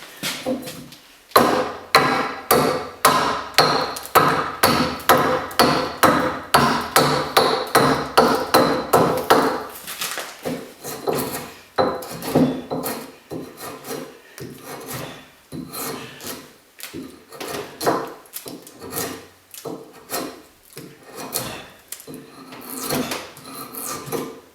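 A hand-held edge tool cutting and shaving green ash wood in repeated quick strokes, about two to three a second at first, then slower and more irregular from about ten seconds in.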